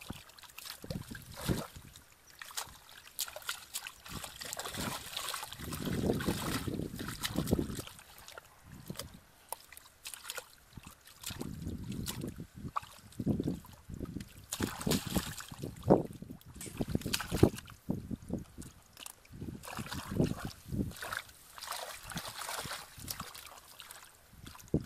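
Hands and feet stirring shallow muddy water in a ditch, giving irregular splashes, sloshing and trickling as someone gropes in the mud for fish.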